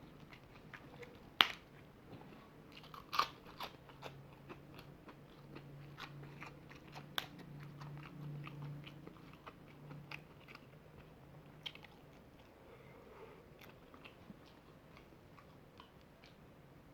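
A person eating close to the microphone: chewing and biting with scattered crisp clicks and crunches, the sharpest one about a second and a half in.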